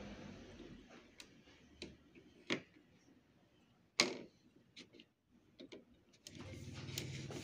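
Scattered sharp plastic clicks and knocks as the print head carriage of a Brother MFC-J3530DW inkjet printer is handled and moved by hand, the loudest knock about four seconds in. A steady low hum comes in near the end.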